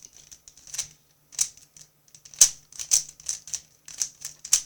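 A 3x3 puzzle cube being turned fast by hand: quick, irregular plastic clicks and clacks of its layers snapping round, several a second with short pauses between bursts.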